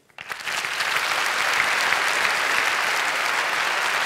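A large theatre audience applauding, the clapping swelling up in the first second and then holding steady.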